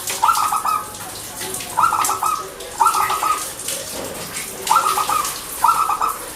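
Perkutut (zebra dove) cooing: five short, rapidly pulsed coo phrases about a second apart, over a steady hiss.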